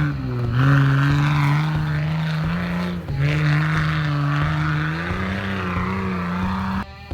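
Nissan Patrol Y61's 4.2-litre TB42 straight-six petrol engine running hard at high revs, its pitch dropping briefly twice and climbing again. The engine sound cuts off suddenly near the end.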